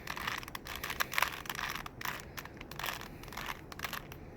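Plastic Rubik's cube being turned rapidly by hand: a quick, irregular run of clicks and scrapes as the layers twist.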